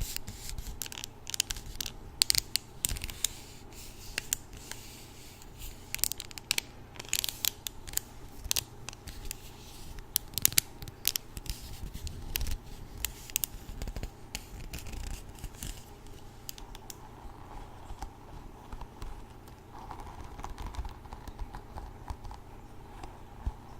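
Hairbrush bristles being scratched and raked close to the microphone: a run of short, crisp scratches at an uneven pace, thicker in the first half and sparser later.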